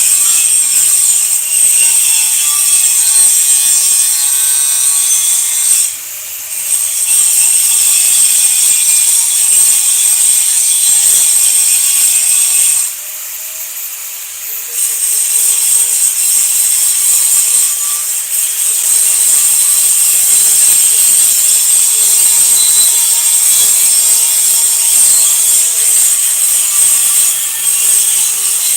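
Electric arc (stick) welding: a loud, steady crackling sizzle of the arc that breaks off briefly twice, once about six seconds in and again for about two seconds near the middle.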